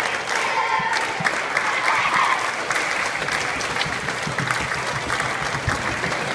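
Applause: many hands clapping at once in a gymnasium.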